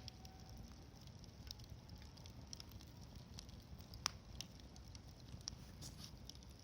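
Wood campfire crackling quietly, with scattered small pops and one sharper snap about four seconds in.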